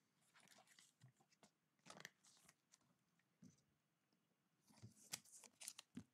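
Near silence, with a few faint clicks and rustles of a trading card being handled and slid into a clear plastic toploader, more of them near the end.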